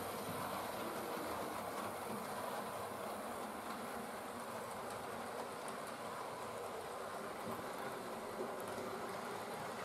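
Model railway locomotive running along the track: a steady electric motor whir with wheel and rail rumble.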